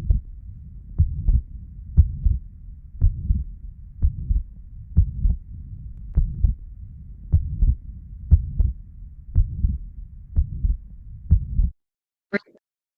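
Recorded heart sounds with the pansystolic murmur of tricuspid regurgitation: about one beat a second, each beat a pair of low thuds, over a steady low rushing murmur. The recording stops about a second before the end.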